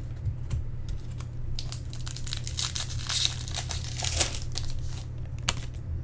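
Foil trading-card pack wrapper crinkling as it is torn open and handled, a run of irregular crackles and small clicks heaviest in the middle, over a steady low hum.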